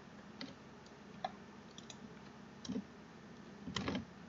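Computer keyboard keystrokes: a few scattered single key clicks, then a quick run of several keys near the end, as code is typed.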